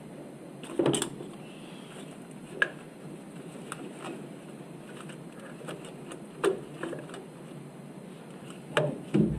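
Irregular sharp clicks and knocks of plastic electrical connectors being squeezed and pulled off the fuel injectors of a Toyota 4.7-litre V8. The loudest come about a second in and near the end.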